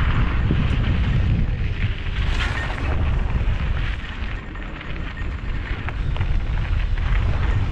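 Wind buffeting the microphone as a mountain bike rolls fast down a rocky dirt trail, with the tyres crunching over dirt and gravel and a few small rattles from the bike over bumps.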